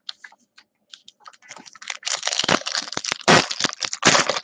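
Trading-card pack wrapper being torn open and crinkled: a few light clicks at first, then a dense crackling rustle with sharp snaps over the last couple of seconds.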